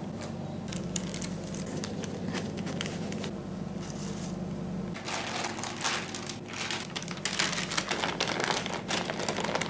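Knife sawing through a sponge cake layer along the inside of a springform ring, with light scratching and clicks; from about five seconds in, baking parchment crinkling and rustling as it is handled and peeled off the sponge.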